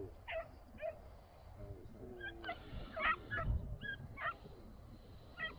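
Pack of Italian hounds (segugi) giving tongue on a hare's trail: a string of short, high yelps and barks in irregular bunches.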